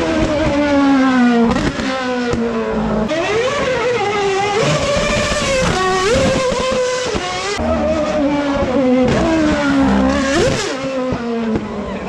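Red Bull Formula 1 car's engine at high revs, its pitch climbing and dropping sharply again and again as it changes gear.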